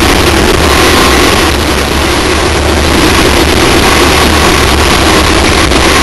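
Loud, steady rush of wind and road noise on the exterior-mounted onboard camera of a Class 1 off-road race car at racing speed over desert terrain, with a low rumble underneath; the engine itself is barely heard through it.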